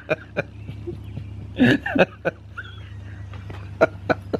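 A man and a woman laughing in short, broken bursts and breathy chuckles, over a steady low hum.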